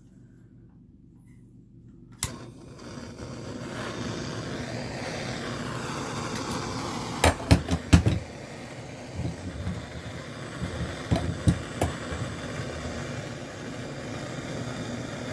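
A gas soldering torch lit with a sharp click, then burning with a steady hiss that builds over a second or two; a few sharp knocks of metal handling come through about halfway.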